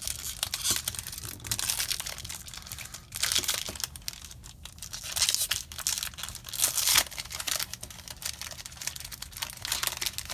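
Foil wrapper of a Magic: The Gathering booster pack being torn open and crinkled by hand, in several separate bursts of crinkling and tearing.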